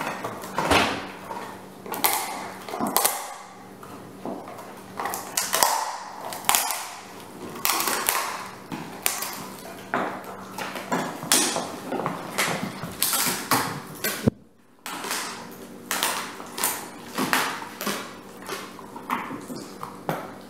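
German Shepherd gnawing a bone, a run of irregular crunching and cracking of teeth on bone, broken by a brief gap about two-thirds through.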